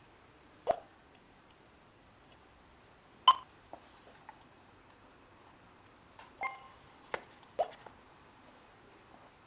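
Wireless home alarm system's touch keypad being operated: a handful of separate taps and clicks with a few short electronic beeps, spaced by quiet pauses. The loudest click-and-beep comes a little past a third of the way in.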